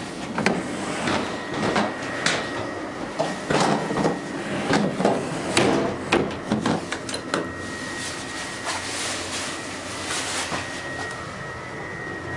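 Clicks, clunks and rattles of a metal door handle and latch being worked and a door opened and shut inside a train carriage, over the train's running rumble. The knocking thins out about seven seconds in, leaving the running noise and a faint steady high tone.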